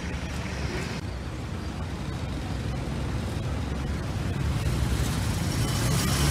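Street traffic: vehicle engines idling and moving slowly in a queue, with a low engine rumble that gets louder over the last couple of seconds as a vehicle comes close.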